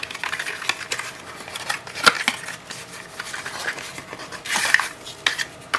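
Hands handling a small product box and unfolding its paper instruction leaflet: scattered light taps, clicks and paper rustles, with a sharper tap about two seconds in and a brief rustle near the end.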